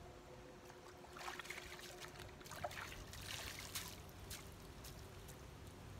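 Water splashing and dripping as a bunch of leafy greens is rinsed in a bucket and shaken out: a run of short, faint splashes starting about a second in and dying away after about four seconds.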